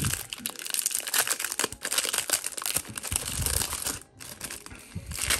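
A baseball card pack's wrapper crinkling and tearing as it is ripped open, busiest for the first four seconds and then dying down to light rustling.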